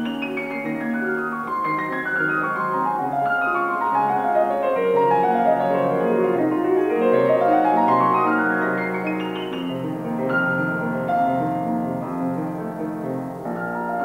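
Solo grand piano playing a waltz: a long run of notes cascading downward for about six seconds, then climbing back up for about three, followed by held chords.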